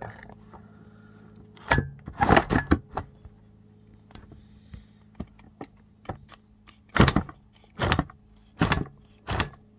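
Screwdriver straining against a stuck screw in a Karcher steamer's cast-aluminium heating block and plastic housing: a cluster of short scrapes and clicks about two seconds in, then four more, about one a second, near the end. The screw is not budging.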